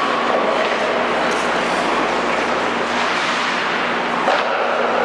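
Indoor ice rink ambience during a hockey game: a steady din of skates and play on the ice, with a sharp knock about four seconds in.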